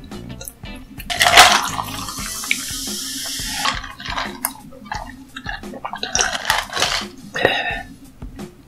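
A rush of running or pouring liquid starts sharply about a second in and lasts about two and a half seconds, over background music.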